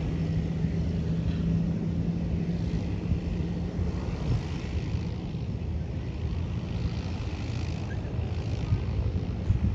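Cessna Caravan single-engine turboprop running on the runway: a steady propeller and engine drone with a low hum. The hum fades out about seven seconds in as the plane moves off.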